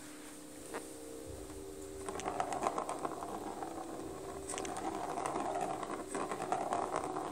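Plastic cat track toy being played with: a busy run of small clicks and rattles starts about two seconds in and goes on.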